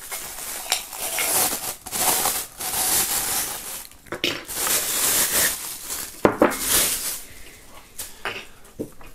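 Plastic bubble wrap crinkling and rustling in bursts as a ceramic mug is pulled out of it. There are a few short knocks in the second half as items are set down on the wooden table.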